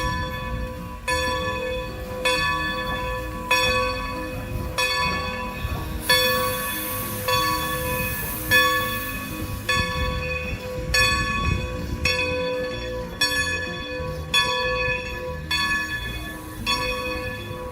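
A steam locomotive's bell ringing steadily, about one strike every second and a bit, as the locomotive runs.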